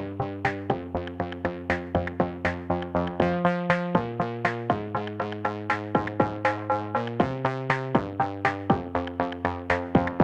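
Electronic music with a steady, quick beat of plucked synth notes over changing chords.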